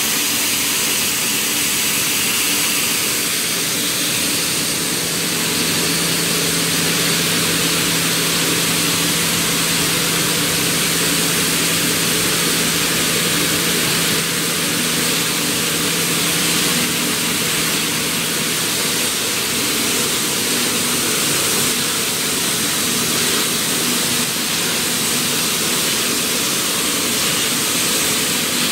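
Gypsum belt filter conveyor running in a plant: a loud, steady machinery hiss with a low hum underneath. A stronger low tone holds from about five seconds in until well past the middle.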